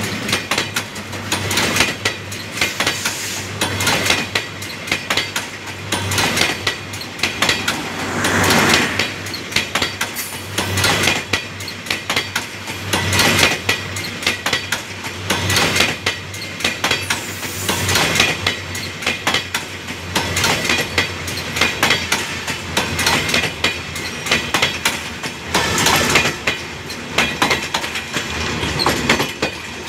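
New Bangladesh Railway intercity passenger coaches, built by PT INKA, rolling past close by, their steel wheels clattering over the rail joints. The clatter swells in repeated peaks about every two seconds as each coach goes by.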